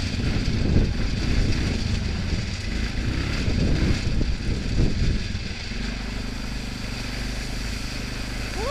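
Four-wheeler ATV engine running under way over gravel. The sound is rough and uneven at first and steadier from about six seconds in, as the quad runs into standing water near the end.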